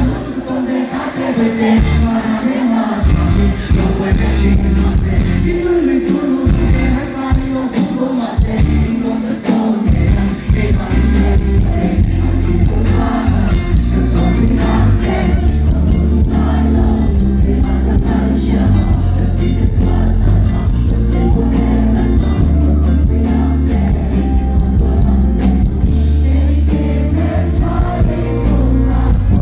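Live pop-rock band playing through a stage PA: a male singer sings into a handheld microphone over electric guitar and the band. The low end is sparse and broken at first, and the full band with a steady bass line comes in about ten seconds in.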